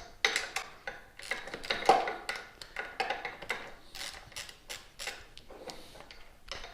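Metal hand tools clinking and clattering: sockets and a ratchet handled and knocked together in a string of irregular sharp clicks.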